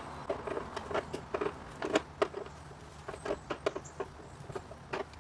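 Irregular light metallic clicks and taps as a wrench and pliers work a steel brake line fitting, tightening it into place.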